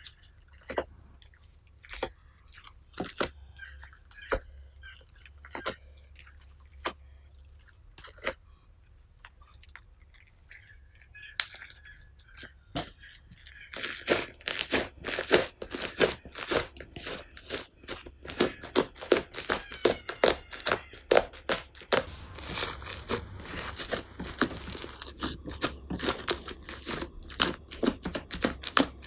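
Purple foaming slime being worked by hand, giving sparse sticky clicks and pops. About fourteen seconds in it turns to a dense, louder run of crackling and popping air bubbles as the foamed-up slime is folded and squeezed.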